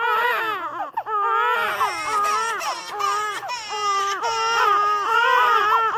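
Newborn baby crying in a run of short, high wails, each rising and falling in pitch, about one or two a second.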